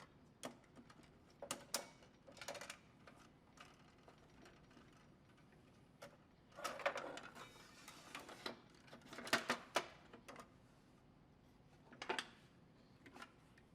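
Blade guard being installed on a SawStop compact table saw: faint, irregular clicks and short clatters as the guard assembly is handled and fitted, with a busier patch of clatter in the middle.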